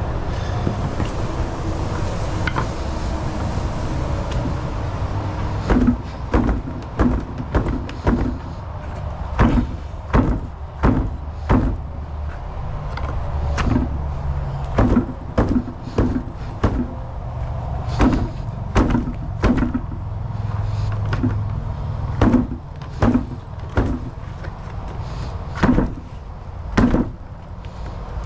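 Repeated sharp knocks and thumps, often in twos and threes, as sticks are wedged in to work a cured concrete fountain bowl loose from its mold. A steady low rumble runs underneath.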